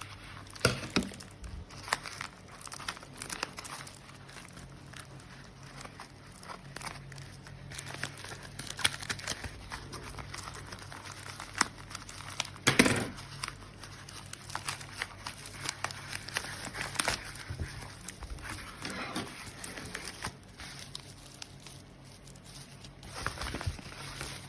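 Plastic packaging crinkling and rustling as it is handled, with irregular small clicks and taps and one louder knock about halfway through.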